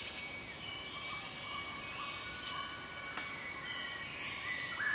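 Woodland ambience: a steady high-pitched insect-like drone with short bird whistles and chirps scattered through, and a falling call near the end.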